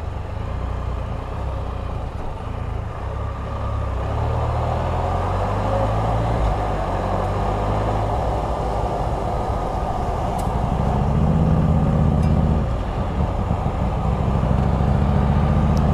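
Can-Am Spyder RT engine running at low revs as the three-wheeler rolls slowly along, with tyre and wind noise coming in about four seconds in. The engine note climbs, dips briefly about twelve seconds in, then picks up again as the bike speeds up.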